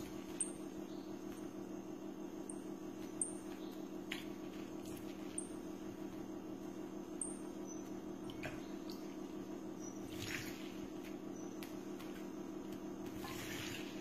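A house sparrow splashing as it bathes in a water-filled cup and saucer: a few brief splashes and drips over a steady low hum, with short high peeps every second or two.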